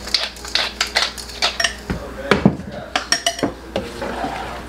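Pepper grinder being twisted over a sauté pan, with a wooden spoon knocking against the pan: a quick run of irregular clicks and knocks, the loudest a little past halfway, easing off near the end.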